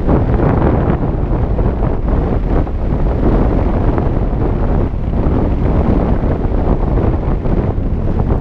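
Loud, steady wind buffeting the microphone of a follow-cam flying along with a paraglider, mostly a low rumble.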